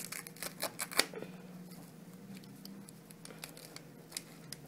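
Plastic chile seeder scraping and cracking through the seeds and ribs inside a fresh jalapeño: quick crackly scrapes, busiest in the first second or so, then sparser.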